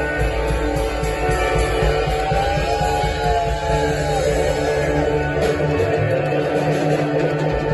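Live rock band playing an instrumental passage, guitar to the fore, with a note bent in pitch a few seconds in.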